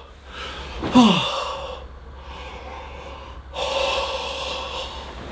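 A man gasping and breathing heavily, panicked breaths on waking from a nightmare. There is a short groan falling in pitch about a second in, and a second long breath about three and a half seconds in.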